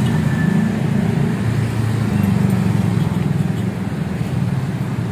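Steady low rumble of motor vehicle traffic.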